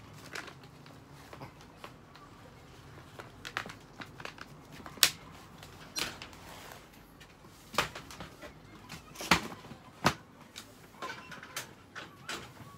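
Irregular clicks, knocks and rustles from handling a dog's toilet tray and its fittings. The sharpest knocks come about five, nine and ten seconds in.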